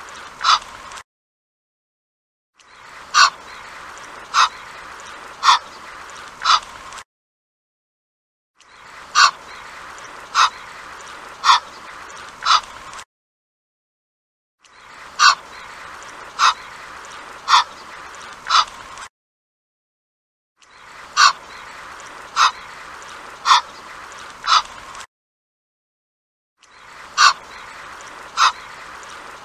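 Egyptian goose calling: short, loud calls in runs of about four, roughly a second apart, over faint background hiss. Each run is followed by a second or two of silence before the next begins.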